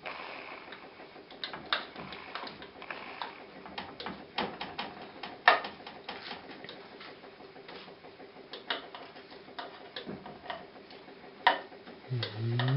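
Metal fork clicking and scraping against a metal baking tray as roasted eggplant slices are turned over: irregular light taps, with a sharper knock about halfway through and another near the end.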